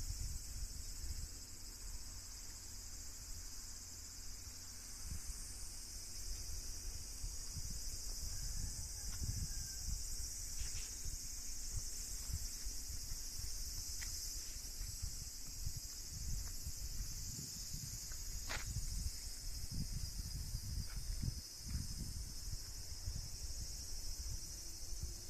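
Steady high-pitched chorus of insects chirring, with an irregular low rumble underneath and a few faint ticks.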